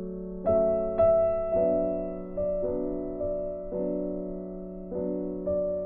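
Slow background piano music, a new note struck about every second and left to die away over a held low tone.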